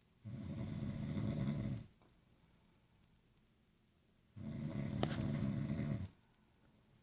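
A person snoring: two long, low, rough snores about four seconds apart, each lasting over a second and a half, with quiet breathing pauses between.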